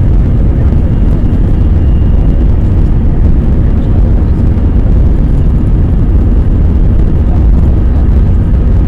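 Airbus A320 jet engines running at power, with the rumble of the airliner rolling down the runway, heard inside the cabin during the takeoff roll: a loud, steady, deep roar.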